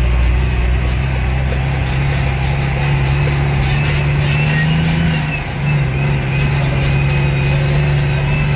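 Heavy truck's engine running steadily under load, heard from inside the cab. Its note climbs slowly, dips briefly about five seconds in, then carries on a little lower.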